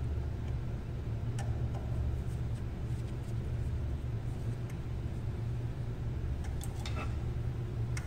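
A steady low hum, with a few light clicks of a screwdriver working wires into a power terminal block, most of them near the end.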